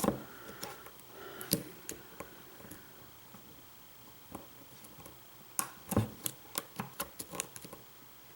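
Small sharp metallic clicks and taps from a hook pick and tension wrench working the pins of the Flathead pin-tumbler lock while it is held in a false set and the picker probes for counter-rotation. The clicks come irregularly, with a quicker run of them about six to seven and a half seconds in.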